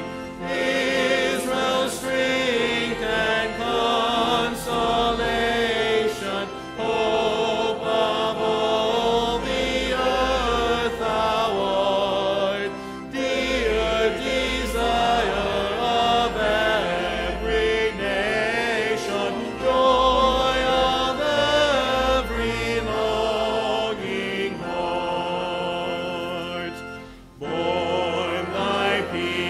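Church choir and congregation singing a hymn together with sustained low accompaniment, the voices wavering in vibrato. The singing dips briefly between lines a few times.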